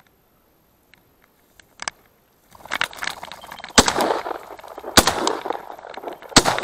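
A covey of chukar partridges flushing with a rush of wingbeats about two and a half seconds in, then shotgun shots at the flushing birds: two reports about a second apart and a third near the end.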